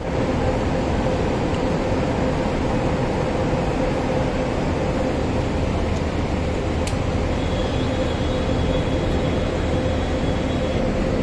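Steady machine-like drone with a low hum and a steady mid-pitched tone; a faint high tone joins for a few seconds in the second half.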